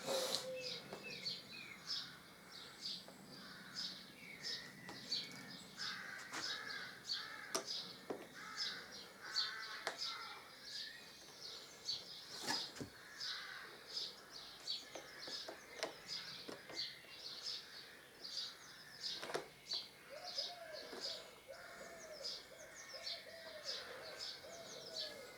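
Birds chirping steadily throughout, with a run of short repeated lower calls near the end. A few sharp clicks from handling parts come through now and then.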